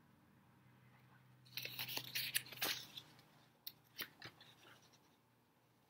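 Faint rustling and crinkling of a paperback picture book's pages as they are handled and worked apart where they stick together, followed by a few light taps.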